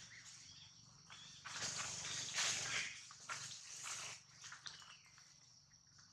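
A troop of long-tailed macaques at close range: a run of rough, noisy bursts of sound from about a second and a half in to about four seconds, over a steady high-pitched hum in the background.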